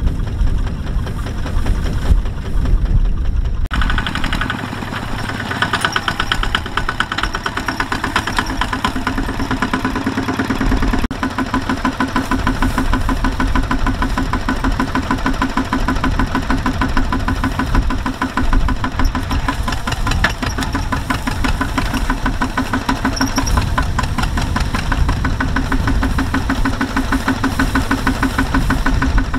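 Two-wheel walking tractor's single-cylinder diesel engine idling with a steady, rapid knocking chug. Its tone shifts a few seconds in and again around the middle.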